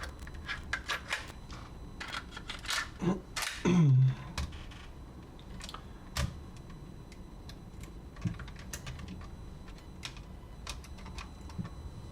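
Small plastic clicks and taps from handling a portable cassette walkman: the cassette being swapped and buttons pressed. The clicks are busier in the first few seconds, with one louder short sound about four seconds in, then sparser.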